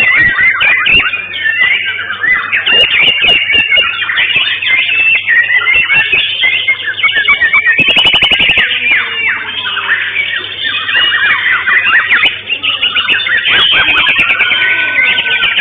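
Several caged white-rumped shamas (murai batu) singing over one another, a dense tangle of whistled phrases and quick trills, with a fast chattering rattle about eight seconds in. A steady low hum runs underneath.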